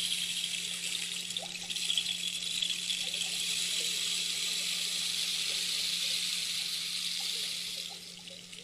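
Steady rush of flowing water, a hiss with a faint low hum beneath it, fading out near the end.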